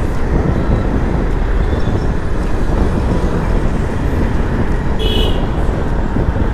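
Wind buffeting the microphone over the steady running of a 125 cc automatic (CVT) scooter being ridden, with road noise. A brief high-pitched tone sounds about five seconds in.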